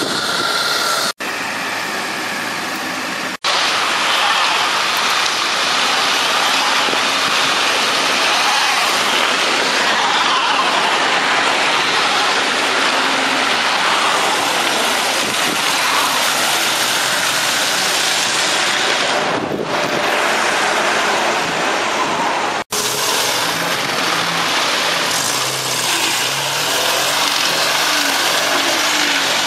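Cars driving slowly on a snow-covered road, their engines running and revving under a steady, loud, noisy hiss. The sound cuts out for an instant three times.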